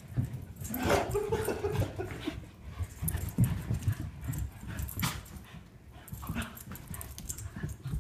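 Two dogs play-fighting on carpet: irregular scuffling of paws and bodies, with short dog vocalisations. The longest vocalisation comes about a second in.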